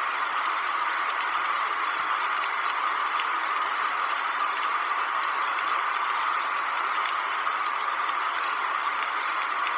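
Steady, even hiss with no speech over it.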